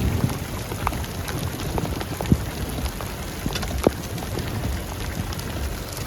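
Heavy rain pelting a storm-chase vehicle: a steady hiss with scattered sharp hits, two louder knocks about two and four seconds in.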